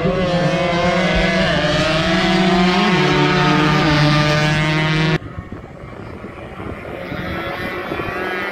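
Several two-stroke 140cc racing motorcycles running hard, their engine notes overlapping and gliding up and down as they pass. About five seconds in, the sound drops away suddenly to a quieter, rougher engine noise, and another bike's engine note builds near the end.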